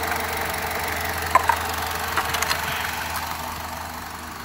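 2009 Mitsubishi Lancer's four-cylinder engine idling steadily, heard close at the engine bay, with a few light clicks around the middle; it grows somewhat quieter near the end.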